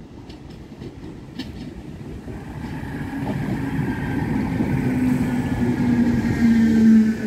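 DART electric multiple unit, an original Class 8100 set, running into the station and braking to a stop. The rumble grows louder as it approaches, with a few wheel clicks at first, then a steady hum and a high electric whine that slowly falls in pitch as it slows.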